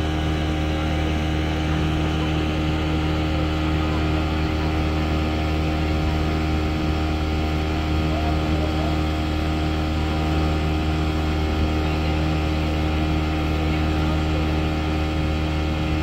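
Motorboat engine running steadily under way, a constant even drone with no change in speed.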